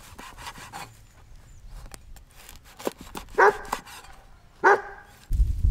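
A dog barks twice, two short barks about a second apart. Before them come faint crisp crackles of a cleaver cutting through a baguette's crust, and a low rumble starts near the end.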